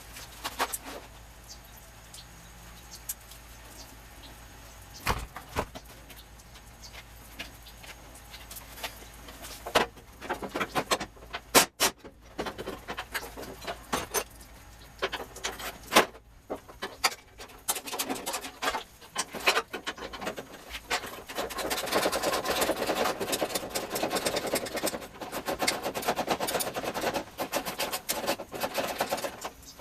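Hand tools working on car body bolts: scattered metal clicks and clinks, then a long stretch of rapid clicking through the second half, like a ratchet being worked.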